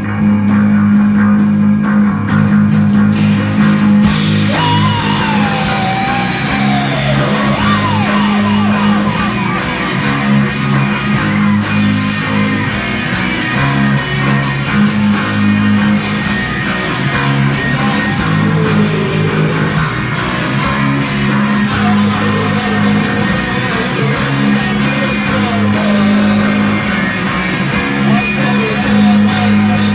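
Live psychedelic hard-rock band playing: electric guitar, bass guitar and drum kit over a repeating low riff. About four seconds in, a higher line with bending, wavering pitches comes in over the top.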